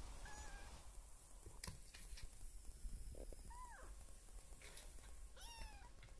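Kitten mewing three times: short, high-pitched mews near the start, in the middle and near the end, the last one falling in pitch. A couple of faint taps fall in between.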